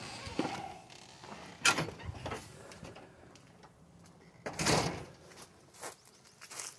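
Storm door with a pneumatic closer swinging shut and knocking against its frame, a sharp clack about a second and a half in and a smaller one just after. A short rustle follows a little past halfway.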